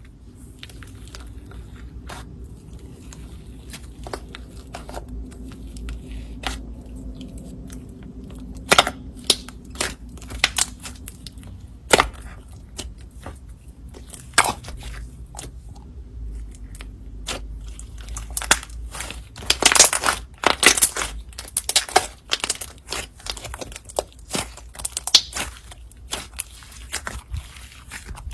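Slime being kneaded and mixed with clay by hand: sharp sticky clicks and crackles, sparse at first, then coming thick a little past the middle.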